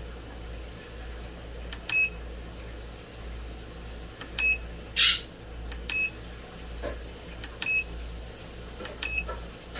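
Heat press digital control panel beeping at button presses: about five short, high beeps a second or two apart, each just after a click, over a steady low hum. A brief swish sounds about five seconds in.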